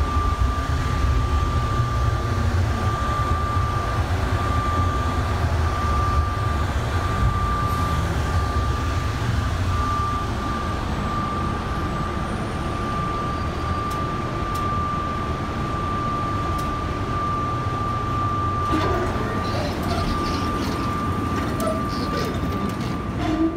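Airport people-mover train running, a steady low rumble with a steady high-pitched whine.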